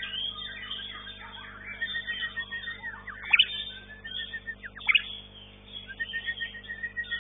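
White-rumped shama (murai batu) singing a fast, varied song: chattering phrases and runs of rapid repeated notes, broken by two loud, sharp downward-sweeping whistles about three and five seconds in.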